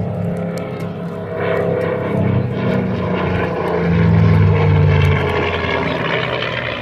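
Single-engine propeller aircraft flying past with a steady engine drone. It grows loudest about four seconds in, then drops in pitch as it passes.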